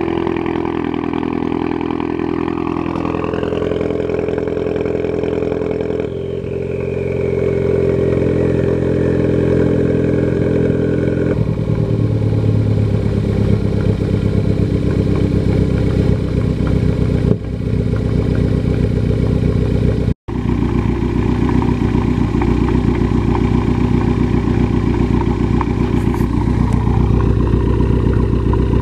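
Ford Focus ST's turbocharged 2.0-litre four-cylinder engine idling steadily, its note stepping down a couple of times in the first dozen seconds. The owner takes the sound for a boost leak from a displaced blow-off valve gasket.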